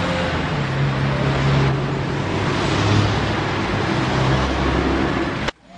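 Steady road traffic noise with a vehicle engine running underneath. It cuts off abruptly near the end.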